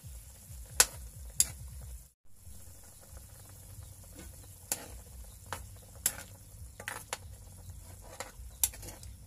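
A ladle stirs chicken simmering in soy-sauce broth in a wok, knocking sharply against the pan about eight times over the bubbling of the liquid. The sound drops out briefly about two seconds in.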